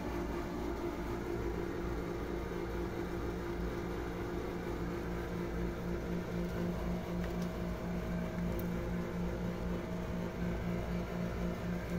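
Steady low mechanical hum from a running motor, with a pulsing low rumble underneath.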